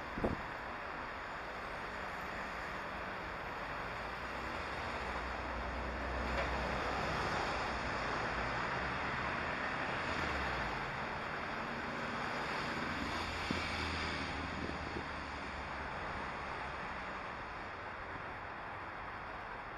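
Steady outdoor noise of wind on the microphone and road traffic, swelling twice as vehicles pass, with one short knock at the very start.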